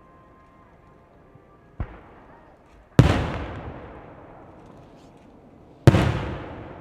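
Aerial firework shells bursting: a softer bang near two seconds in, then two loud bangs about three seconds apart, each trailing off in a long fading reverberation.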